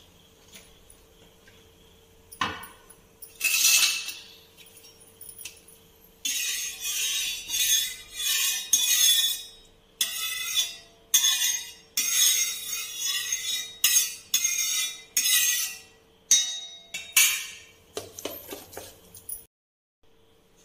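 Steel spatula scraping across a hot iron tawa to spread oil over it before the batter goes on, about a dozen hissing strokes, with a knock a couple of seconds in.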